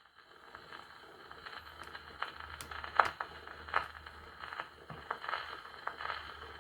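Steel needle of a wind-up gramophone riding the run-out groove of a 78 rpm shellac record after the song has ended: faint surface crackle with a sharp click roughly once per turn of the record.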